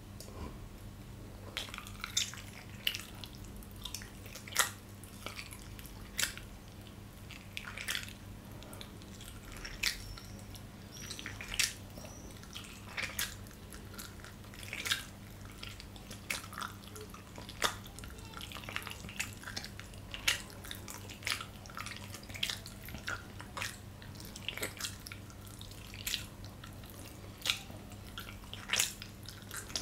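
Open-mouth chewing of gyoza dumplings: irregular wet smacking clicks of the lips and tongue, about one or two a second, over a steady low electrical hum.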